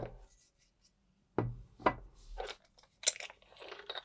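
Handling of a metal flashlight battery tube and its 21700 cells: a click, then a few knocks about a second and a half in, and scraping, rubbing noise near the end.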